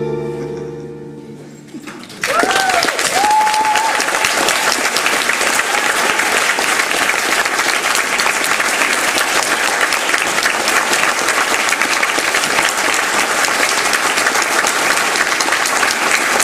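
The tango music's final held chord fades away, then the audience breaks into steady applause about two seconds in, with a few voices calling out as the clapping begins.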